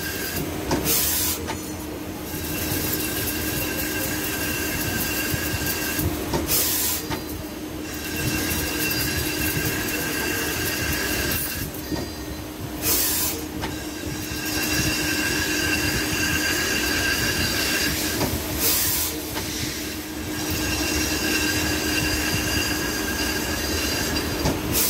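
CNC lathe cutting a chamfer along a 30 mm-pitch helical groove in a spinning metal workpiece. A steady hum runs under a high-pitched squeal during each cutting pass, broken about every six seconds by a short burst of hiss between passes.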